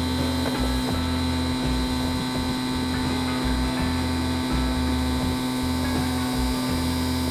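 Bench grinder with a wire wheel running steadily, a constant electric-motor hum.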